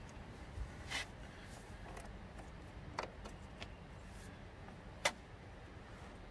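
A few sharp clicks and knocks from hands working a serpentine belt over the engine's pulleys, the loudest about five seconds in.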